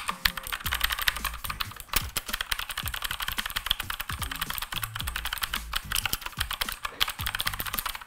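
Rapid, continuous typing on a Redragon K552 mechanical keyboard: a dense, fast clatter of key clicks, very loud for a keyboard.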